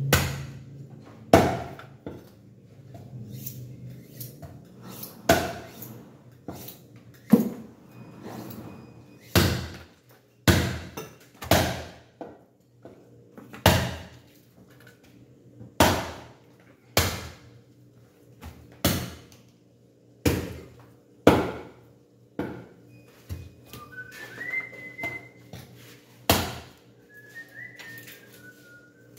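Sharp knocks every second or two as a butcher's knife strikes bone and the wooden chopping block while a pork leg is deboned, over a steady low hum. A few short whistled notes come in near the end.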